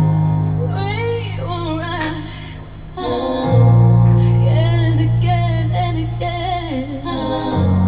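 A woman singing a slow ballad live, her held notes wavering with vibrato and sliding between pitches, over sustained low accompaniment chords that change about halfway through and again near the end.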